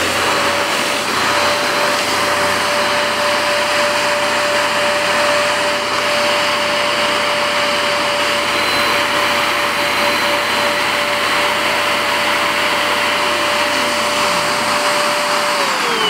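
Handheld bedding vacuum cleaner running steadily: motor and suction noise with a constant whine. Near the end it is switched off and the whine falls as the motor winds down.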